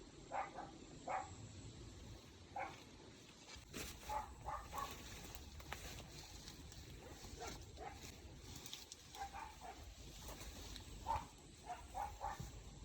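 A dog barking in short, separate barks, scattered irregularly, some singly and some in quick clusters of two or three.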